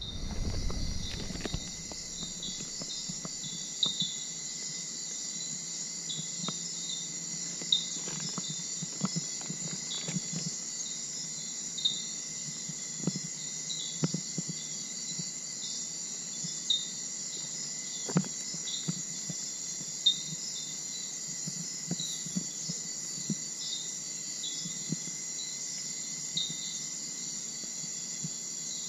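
Insect chorus: a steady high drone with a constant thin whining tone, and short chirping calls repeating every second or two. Occasional soft clicks and rustles underneath.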